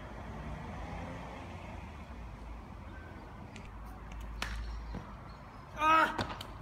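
A few quick footfalls on pavement during a parkour run-up, then a short, loud yell near the end as the jumper launches into a kong precision vault.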